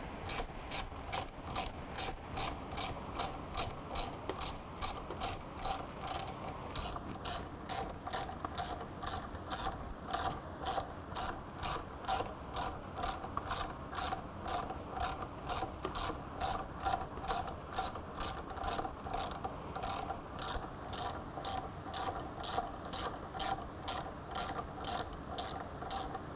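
Socket ratchet wrench clicking steadily, about two clicks a second, as it runs the motorcycle's front axle bolt in snug by hand before it is torqued down.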